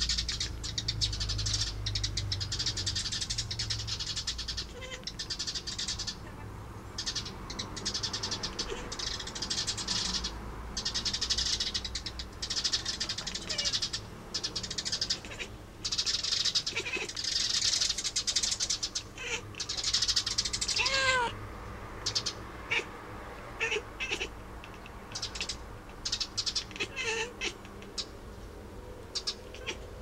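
Domestic cat chattering at birds through a window: stretches of rapid, hissy chatter broken by short gaps, with a few brief chirping meows, the clearest one falling in pitch about 21 seconds in.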